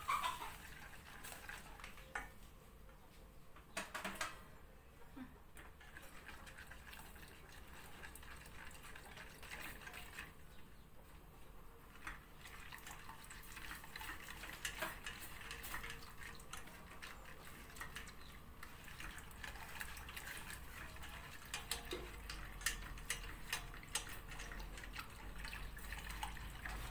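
Silicone whisk stirring milk and chocolate in a stainless steel pot, a faint liquid swishing with light taps of the whisk against the pot. A tap comes at the start and another about four seconds in, and they come more often near the end.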